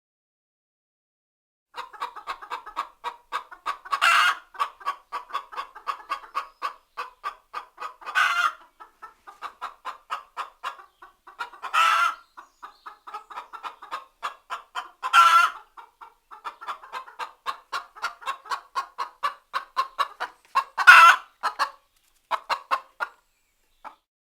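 A bird calling in quick short repeated notes, about four a second, broken five times by a louder, longer call.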